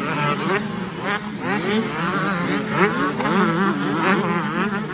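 Several 125 cc two-stroke motocross bikes racing past, their engines revving up and down over the jumps, several engine notes overlapping and rising and falling in quick swells.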